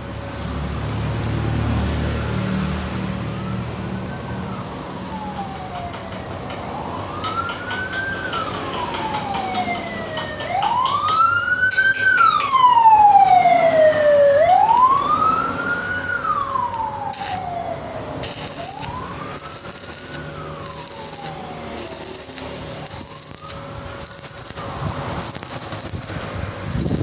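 Emergency vehicle siren wailing, each slow rise and fall in pitch taking about four seconds; it swells to its loudest around the middle and then fades away. Intermittent crackling and a steady hum lie underneath.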